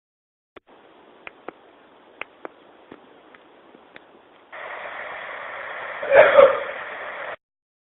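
A person clearing their throat: one short, loud, two-part burst about six seconds in, over a steady recording hiss, with a few faint clicks earlier.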